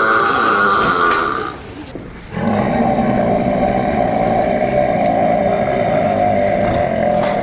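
A long, loud human burp that stops about a second and a half in. After a cut, a second prolonged burp is held at one steady pitch for about five seconds.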